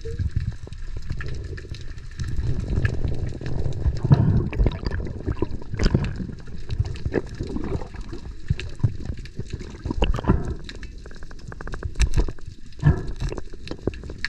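Muffled underwater rumbling and gurgling of moving water around a dive camera's housing, with scattered clicks and knocks throughout.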